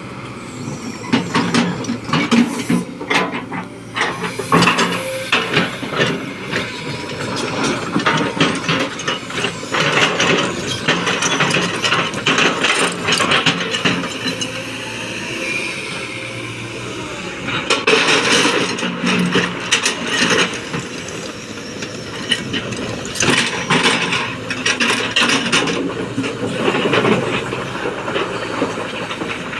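Kobelco 220XD excavator at work: the diesel engine runs under load with hydraulic whine, over repeated clanks, knocks and rattles from the bucket and the material it handles. For a few seconds around the middle the pitch dips and rises again.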